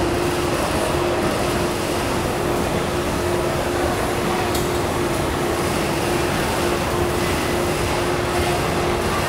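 Steady rumbling background noise with a constant low hum under it, unchanging throughout.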